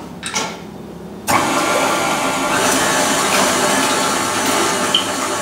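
Stand mixer switched on about a second in, its motor running steadily as the wire whisk beats eggs and milk in the steel bowl.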